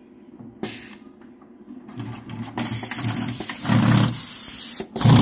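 Dürkopp Adler 967 heavy-duty walking-foot sewing machine stitching through thick webbing, its direct-drive motor and walking feet running in a fast, even rhythm. Quiet at first with a single click, it picks up about two seconds in and runs loudly and steadily, with a brief stop near the end.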